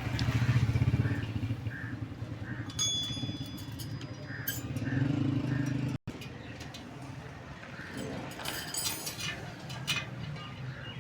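Motorcycle engines running nearby, loudest in the first second and again around five seconds in, with several sharp metallic clinks that ring briefly.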